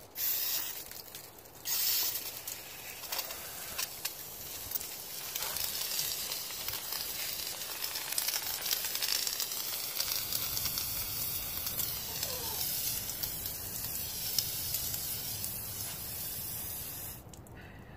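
Garden hose spraying water onto a tire: a short burst, then a long steady hissing spray that stops about a second before the end.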